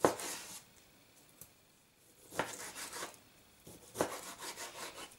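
Chef's knife cutting peeled orange segments into pieces on a plastic cutting board: a sharp knock of the blade on the board at the start, then two runs of quick cuts with the blade knocking the board.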